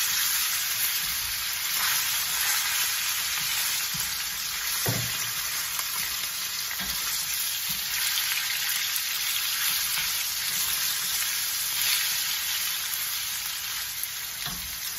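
Sliced raw chicken breast sizzling steadily in hot oil in a wok, the frying starting as it hits the oil. Tongs turning the pieces give a few brief knocks against the pan, one about five seconds in.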